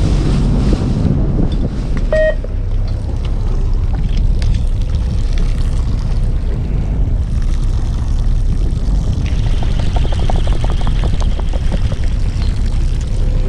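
Fishing boat's engine running steadily, with wind buffeting the microphone. A short beep sounds about two seconds in.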